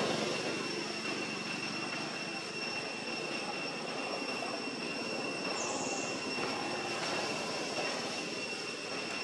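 A steady outdoor drone: an even rushing noise with a constant high-pitched whine on top, unbroken throughout.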